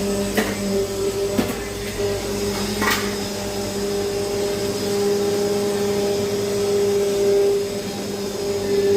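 Steady hum of a running electric motor or compressor, with a few held tones, and faint clicks about half a second, a second and a half and three seconds in.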